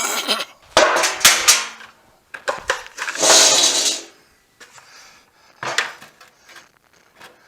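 Several loud knocks and clatters with scraping and some ringing, the loudest about a second in and a longer scraping spell around three to four seconds in, then a few fainter knocks. These are the sounds of 5-gallon pails and a steel truck bumper being set up and shifted into place.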